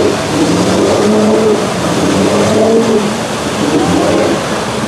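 Lifted pickup truck's engine revving hard under load as it churns through deep mud, its pitch rising and falling, with the tires throwing mud and water.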